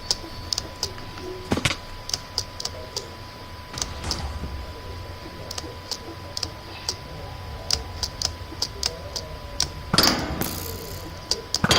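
Scattered sharp clicks and taps at uneven intervals, over a faint steady tone, with a brief rustling burst about ten seconds in.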